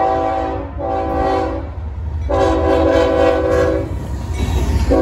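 Diesel locomotive's multi-chime air horn sounding a chord in several blasts: two near the start, a longer one in the middle and a short one at the end, sounded for a grade crossing. Under it runs the low rumble of the approaching train.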